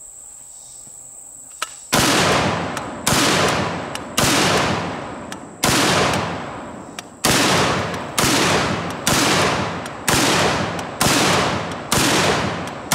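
Street Sweeper 12-gauge revolving-drum shotgun firing 2¾-inch double-aught buckshot: about eleven shots roughly a second apart, starting about two seconds in, each blast trailing off over most of a second. A steady high insect drone sits underneath.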